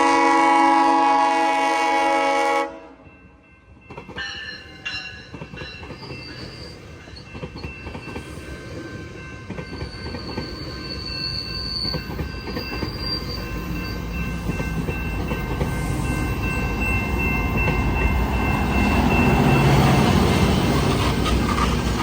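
Train horn sounding a multi-note chord that cuts off sharply about three seconds in. Then a train approaches, its rumble on the rails building steadily to its loudest near the end, with thin high wheel squeals coming and going.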